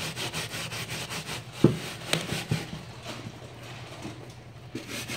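Stiff bristle brush scrubbing a wet white leather sneaker, quick back-and-forth strokes that grow quieter and sparser after the first couple of seconds. A sharp knock about one and a half seconds in.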